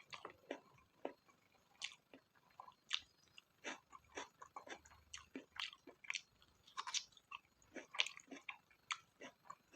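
A person chewing mouthfuls of spicy pork fat: irregular short smacks and soft crunches, several a second.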